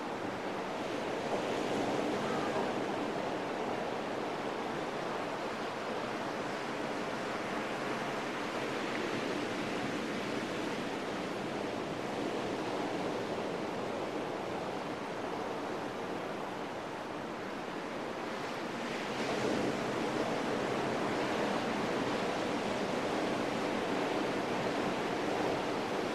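Sea surf washing onto a sandy beach, a steady rush of breaking waves that swells a little about two seconds in and again about twenty seconds in.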